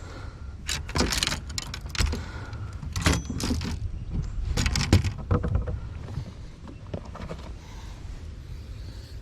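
Irregular rattling and knocking from fishing gear being handled as a just-caught fish is dealt with, over a low steady rumble. The clatter dies away after about six seconds.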